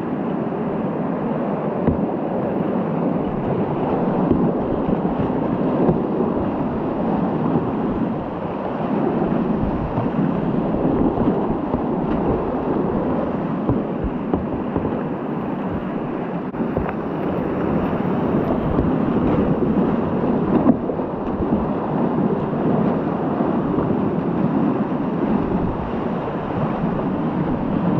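Whitewater rapids rushing around a kayak, a steady loud churn of water, with occasional short splashes from paddle strokes and waves hitting the boat.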